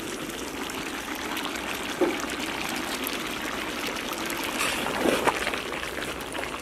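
Thick chicken gravy simmering and bubbling in a large iron kadai, with a few short knocks and scrapes of a metal ladle stirring it.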